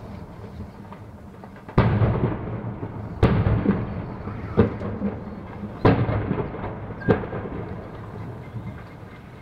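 Explosions at a burning warehouse complex: five sharp blasts about a second and a half apart, each followed by a rolling, thunder-like rumble.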